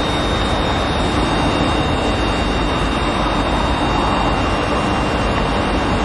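FS ALe 642 electric railcar standing at the platform, giving out a steady loud hum and fan noise with a thin, steady high whine over it.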